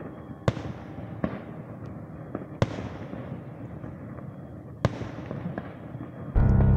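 Fireworks shells bursting: three sharp bangs a couple of seconds apart and a lighter one, with crackling between them. Loud music comes in near the end.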